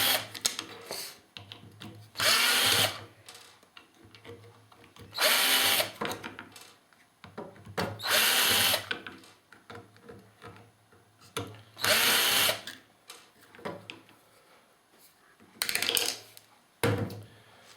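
A power drill used as a screwdriver, running in about six short bursts a few seconds apart as it backs out the screws holding the plastic bar clamp's housing together, its motor pitch rising and falling in each burst. There are small handling clicks in between.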